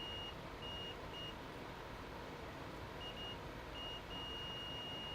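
Multimeter continuity beeper sounding in several short, uneven beeps, then one long steady beep from about four seconds in: the wire is now showing continuity.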